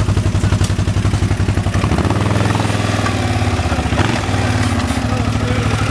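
ATV engine running at low speed, revving up about two seconds in and easing back down about two seconds later.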